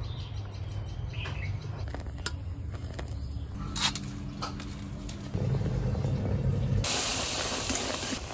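Spiced masala sizzling in hot oil in a kadai as a spatula stirs it: a steady hiss for about the last second and a half. Before it, scattered light clicks and knocks, one sharper knock near the middle.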